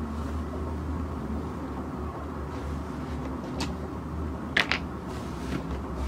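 Slime being handled, with a few sharp clicking pops, two close together about four and a half seconds in, over a steady low hum.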